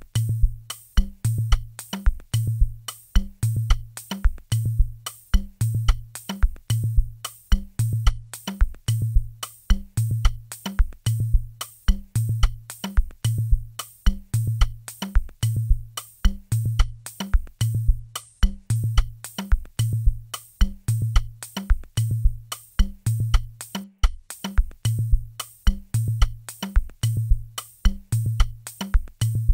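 Programmed drum loop playing back in FL Studio: a deep kick about once a second, with hi-hats and percussion clicking in between in a steady repeating pattern. The drum tracks are being balanced in level against the kick.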